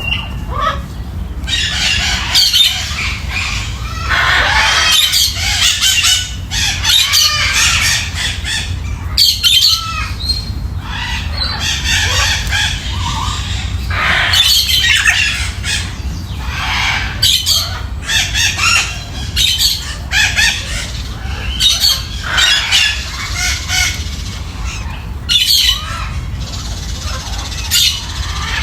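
A group of parakeets and other small parrots chattering and squawking continuously, many calls overlapping, over a steady low hum.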